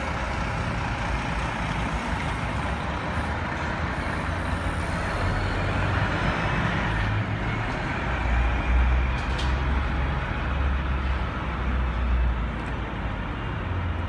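City street traffic noise: a steady rumble of motor vehicles, with the deep rumble growing heavier about eight seconds in.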